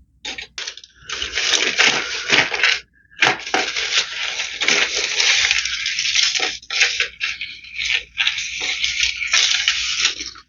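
Crinkling rustle of a bag or wrapping being handled and rummaged through, almost continuous with a short break about three seconds in.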